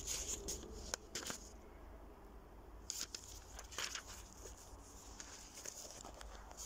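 Faint, scattered rustles and crackles over a low steady hum.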